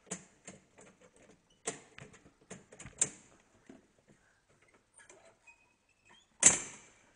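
Scattered light clicks and knocks at an uneven pace, with one sharp, louder knock near the end.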